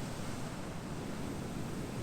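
Ocean surf: a steady wash of waves in a lull between breakers.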